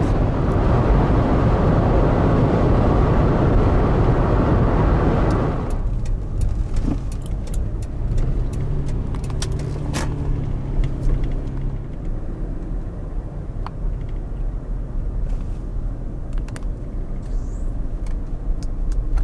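Road and engine noise inside a moving car's cabin, loud and steady at first, dropping suddenly to a quieter drive about six seconds in, with scattered light clicks.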